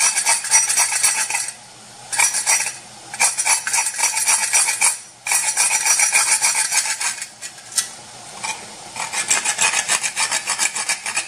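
A whole nutmeg grated on a metal box grater: quick, even scraping strokes in several runs, broken by short pauses.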